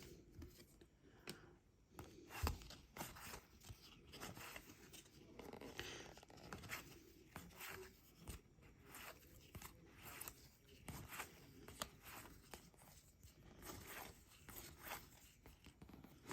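Faint rustling, sliding and light clicks of trading cards and pack wrappers being handled and flipped through, with one sharper knock about two and a half seconds in.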